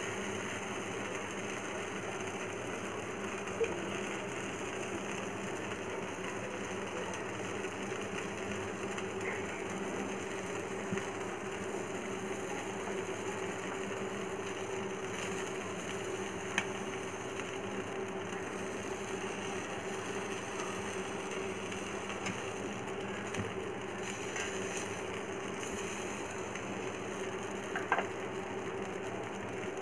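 Gas stove burner on a low flame under chicken roasting on a wire grill rack: a steady hum and hiss, with a few faint clicks.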